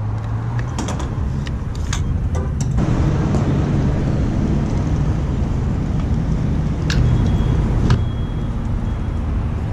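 Fuel pump handled by hand: sharp clicks and clacks as a card goes into the reader and the nozzle is lifted, a few more knocks later, with a brief faint beep near the end. Underneath, a steady low rumble of road traffic.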